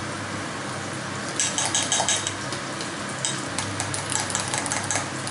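A fork stirring an egg and cheese carbonara mixture in a glass, clinking against the glass in two quick runs, about a second and a half in and again past the middle. Underneath, guanciale sizzles steadily in the frying pan.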